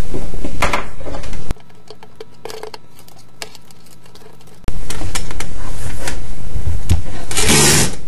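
Clattering and knocking of small hard objects handled on a bench top, over a loud steady hiss. The sound drops suddenly to much quieter about a second and a half in, then jumps back just before the middle.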